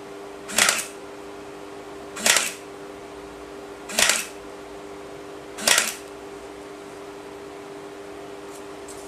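MAX EH-20F electric flat-clinch stapler firing four times, about one every second and a half to two seconds, each a short mechanical clack as it drives a staple through the paper.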